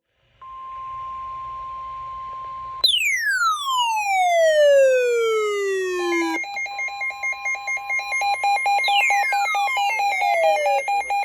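Electronic alert tones: a steady high beep for about two seconds, then a long tone falling steeply in pitch, then a fast pulsing warble of several tones with a second falling tone over it near the end.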